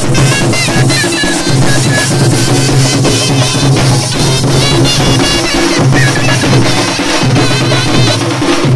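Live Jharkhandi folk music: loud, busy drumming on large stick-beaten drums and hand-played mandar barrel drums, under a wavering, reedy shehnai melody.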